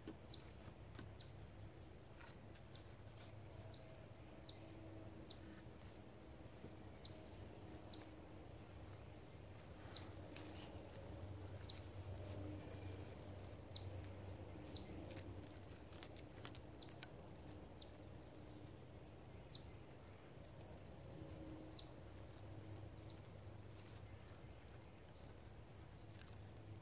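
A bird repeating a short, high, falling chirp about once a second, faint, with small clicks and rustles from cord being wound and tied around the wooden poles of a sawhorse.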